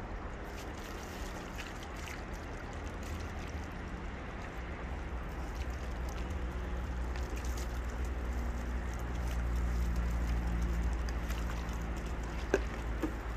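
Water poured from a plastic jug splashing over a gutted burbot on wet cardboard as it is rinsed, over a steady low rumble that swells in the second half. A sharp click near the end.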